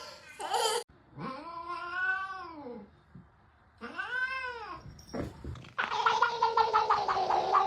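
A cat yowling: two long drawn-out meows that rise and fall in pitch, then a louder, wavering yowl from about six seconds in that slowly drops in pitch.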